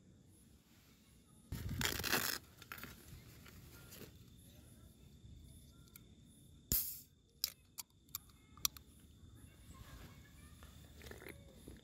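Crinkly stuff-sack fabric and plastic bags rustled and crumpled by hand, with a loud crinkle about a second and a half in, a sharp rustle near seven seconds, then a few light clicks.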